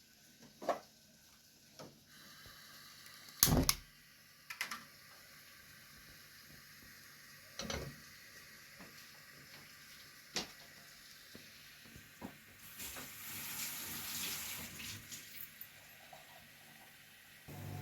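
Kitchen sink: scattered knocks and clinks of utensils or dishes, the loudest about three and a half seconds in, then a tap running for about two seconds past the twelve-second mark.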